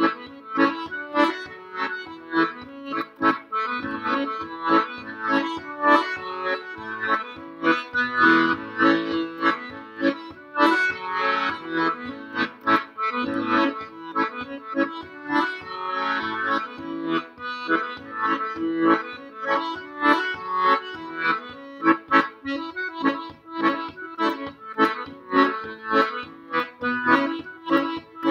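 Weltmeister chromatic button accordion playing a Scottish reel: a quick run of melody notes over a steady, even beat.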